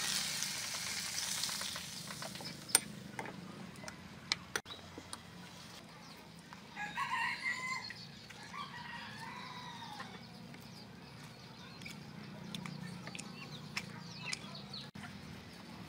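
Hot oil poured over minced garlic and soy sauce sizzles loudly at the start, fading away over about two seconds. A few sharp knocks follow. About seven seconds in a rooster crows once in the background, with hens clucking faintly.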